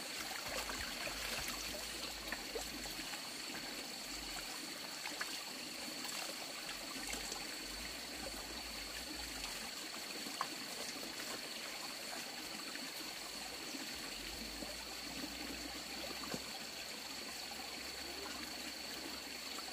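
Shallow rocky stream trickling steadily over stones, with a few small splashes as a cloth is washed in it. A steady thin high-pitched whine runs behind it.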